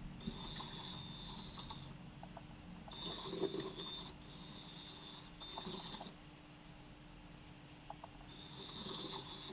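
LEGO Powered Up train motors whirring and wheels rattling over plastic track, in several bursts that start and stop abruptly as the trains run and halt.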